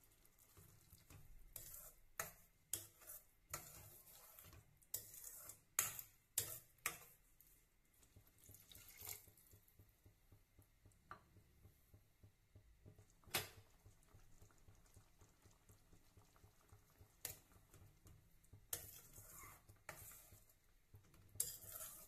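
Faint kitchen sounds: scattered clinks and scrapes of a utensil against a cooking pan, mixed with watery sloshing. The sharpest clinks fall around six seconds in and about thirteen seconds in, with another cluster near the end.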